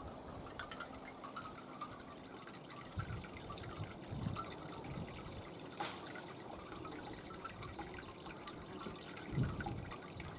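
Water dripping and trickling, many small irregular drips with a sharp click about six seconds in.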